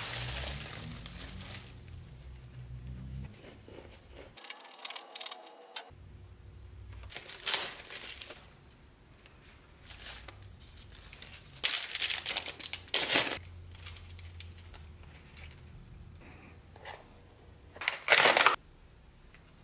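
Hands crinkling plastic food packaging and tearing iceberg lettuce leaves, in irregular crackling bursts. Near the end the clear plastic lid of a deli-meat tray is pulled open with a loud crackle.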